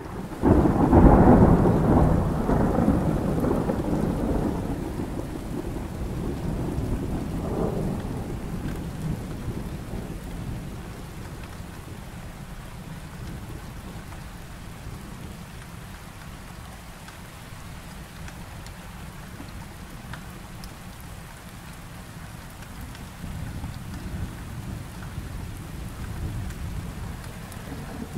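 Thunderstorm: a loud roll of thunder starts suddenly and rumbles away over several seconds over steady falling rain, with a smaller rumble about seven seconds in. Thunder builds again near the end.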